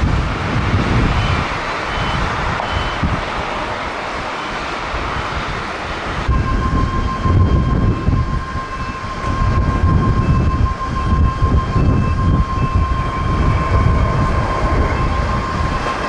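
Jet airliners on their landing roll under heavy wind rumble on the microphone. First comes a Boeing 737's engine noise. About six seconds in, it changes abruptly to a Boeing 777 with GE90 engines, whose steady high whine runs through its thrust-reverser roll.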